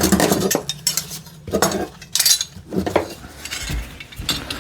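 Old metal hand tools clinking and clattering against each other as they are rummaged through and moved about in a box, in a string of uneven knocks.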